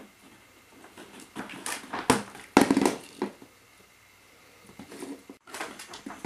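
Plastic ball-pit balls clattering and rustling against each other and the plastic tub as a mink burrows through them, in bursts about a second and a half in and again near the end.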